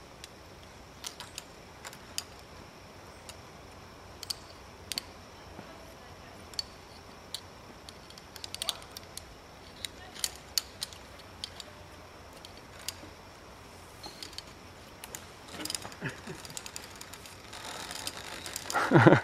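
Steel carabiners and a zip-line trolley clicking and clinking in scattered sharp clicks as they are handled on a steel cable. Near the end a rising whirr as the trolley starts running along the cable, and a loud shout from the rider.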